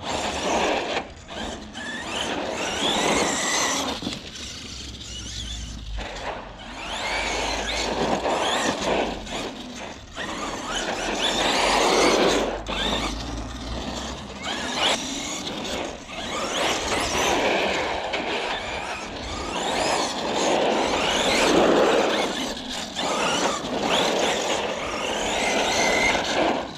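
Arrma Kraton EXB RC truck driving in bursts on 4S, its Castle 1717 brushless motor and drivetrain whining up and down in pitch with the throttle. The tyres scrub along the ground, and the noise swells and fades every few seconds as the truck speeds up and backs off.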